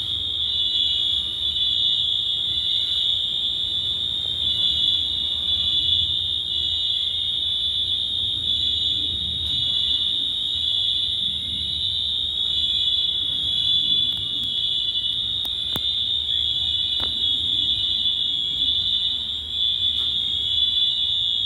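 Building fire alarm sounders going off with a loud, continuous high-pitched tone that holds steady throughout.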